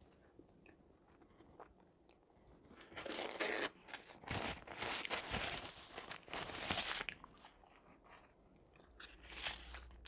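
Close-miked eating sounds: chewing, then a few seconds of loud rustling and crunching from about three seconds in as a paper napkin is rubbed across the mouth, and another short burst near the end.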